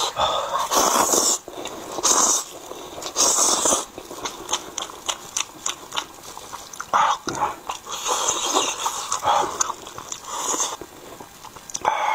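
Close-miked noodle eating: fried noodles slurped in several long, noisy pulls, with quick wet clicks of chewing and lip smacking between them.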